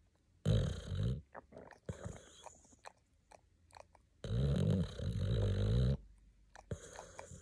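Boxer dog snoring in its sleep: two loud snores about three and a half seconds apart, the second lasting nearly two seconds, with softer breaths and faint clicks between.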